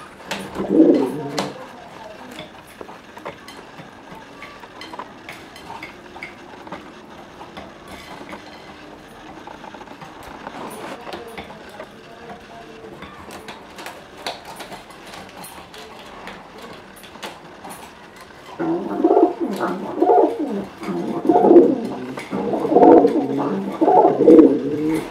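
Domestic pigeons cooing: one coo phrase at the start, then a long quieter stretch with scattered light clicks of pecking at seed, and from about three-quarters of the way through a run of loud, repeated coos, the calls of two pigeons squabbling.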